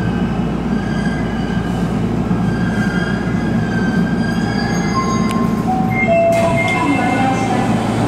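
Electric commuter train heard from the driver's cab, braking along the platform to a stop: a steady running rumble with thin squealing tones from wheels and brakes. A few short squeals at different pitches come near the end, and the low rumble drops away about six seconds in as the train halts.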